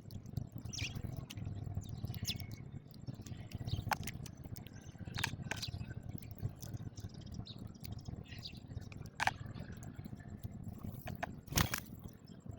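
House sparrows chirping in short, scattered calls over a steady low rumble, with a sharp click near the end.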